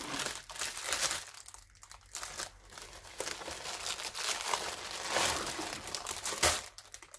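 Plastic packaging crinkling as a clear bag of diamond-painting drills, packed in many small plastic packets, is pulled out of a poly mailer bag and handled, in irregular rustles with one sharp, louder crack near the end.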